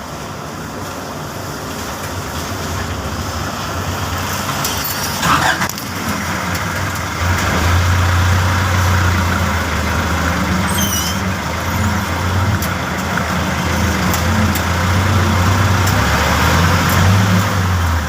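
A motor vehicle's engine running steadily, its low hum growing louder about seven seconds in, with a short hiss about five seconds in.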